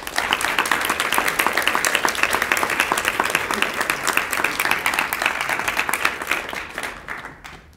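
Audience applauding at the end of a lecture: dense clapping that starts at once, holds steady for about six seconds, then thins out and stops.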